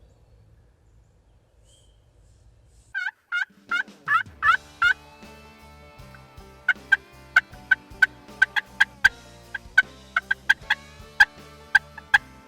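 A wild turkey gobbling about three seconds in, a quick series of wavering notes. Music with plucked guitar notes over steady low chords follows.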